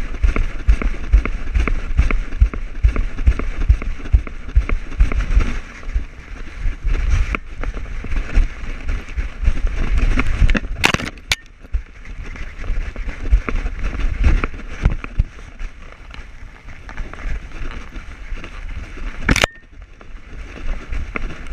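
Handling noise from an action camera strapped to a running husky shepherd mix: irregular thumps from its strides and a rough rustling. It is quieter after the middle, with a couple of sharp clicks about eleven seconds in and again near the end.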